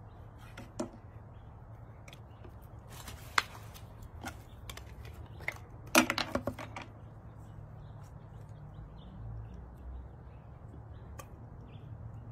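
Scattered clicks and knocks of hands handling a plastic ketchup bottle, its cap and a knife on a wooden cutting board, with one sharp click about three seconds in and a quick run of sharp clicks about six seconds in. A steady low hum sits underneath.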